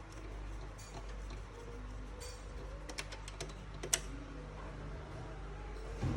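A few light, sharp clicks and taps, bunched about three to four seconds in with the loudest near the end of that run, over a steady low hum.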